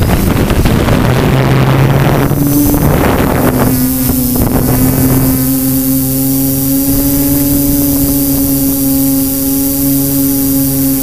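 Multirotor drone's propellers spinning up and lifting off, with a loud rush of wind on the microphone for the first few seconds. It then settles about four seconds in into a steady hum at one pitch while hovering and climbing.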